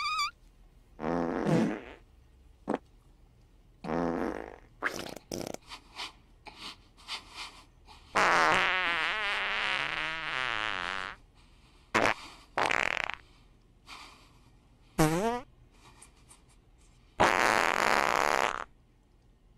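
A string of fart sound effects, short and long, about a dozen in all with gaps between them. The longest is a wavering one of about three seconds near the middle, and a loud, airy one comes near the end.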